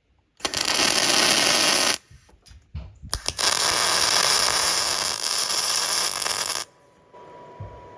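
Angle grinder grinding steel in two long passes, a steady loud hiss each time, with short quiet breaks between.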